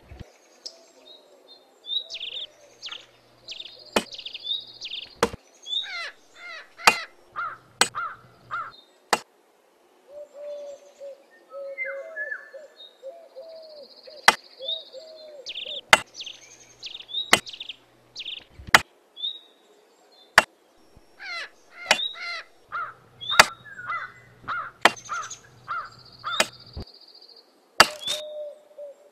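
Machete blade chopping into dry wood, sharp single strikes at irregular intervals, among repeated calls of birds.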